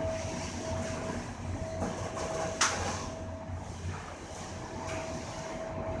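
Inclined elevator cab in motion, giving a steady running noise with a constant high whine. There is one sharp click about two and a half seconds in.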